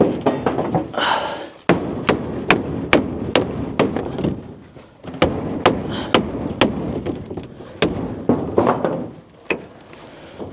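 Hammer blows on the wooden shipping crate's sidewall, a quick series of two to three strikes a second, with a short pause partway through and a second run of strikes.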